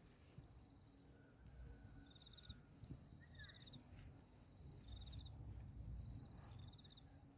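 Near silence with faint outdoor ambience: four short, rapidly pulsed high-pitched chirps from a small animal, about a second and a half apart, over a faint steady high tone. A faint low rumble swells a little past the middle.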